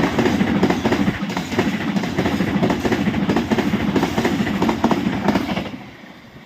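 Papandayan long-distance passenger train running through the station at speed, its coaches rushing past with rapid clickety-clack of wheels over the rail joints, dying away about six seconds in.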